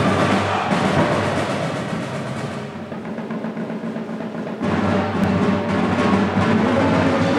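High school indoor drumline playing, with snare, tenor and bass drums. The playing eases off in the middle, then the full line comes back in suddenly and louder, with heavy low drums, a little over halfway through.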